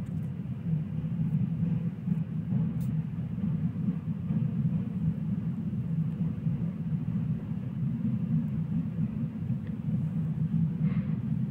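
Loaded railway tank cars of a freight train rolling past, a steady low rumble of wheels on rails.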